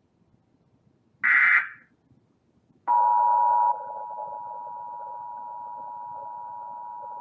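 Emergency Alert System tones on a broadcast: a short burst of data tone about a second in, the end of the alert's digital header, then about three seconds in the EAS two-tone attention signal starts, a steady two-note tone that drops somewhat in level after a moment and runs on.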